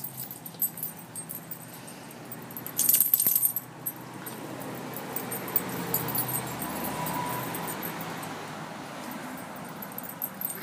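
Small dogs scuffling and play-wrestling, with a brief loud metallic jingle about three seconds in. A broad rushing noise swells and fades over the middle.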